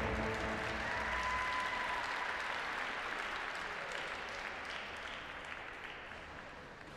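Audience applauding at the end of a figure skating program, the applause gradually dying away.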